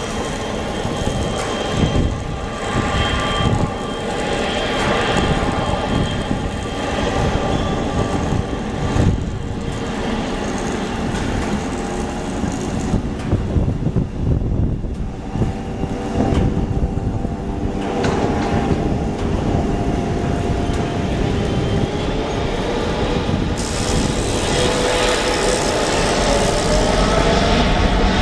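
Boeing 777F freighter's GE90 turbofan engines running at taxi power, a steady jet whine over a low rumble. The hiss grows louder and the whine rises slightly in pitch near the end.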